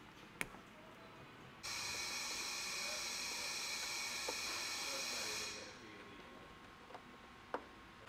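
A wire stripper snaps once on a red wire. Then a steady hiss starts suddenly and fades after about four seconds, with a few small clicks as wires are screwed into a fuse-block terminal strip.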